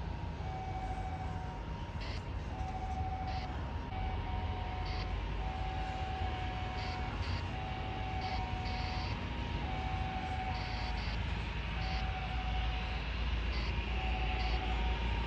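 Jet airliner engines rumbling, slowly growing louder toward the end as the aircraft powers up or comes closer. A faint two-note high-low tone alternates about once a second behind it.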